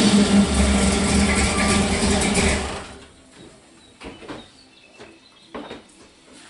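Small truck's engine running, then shut off about three seconds in, followed by a few light knocks and clicks.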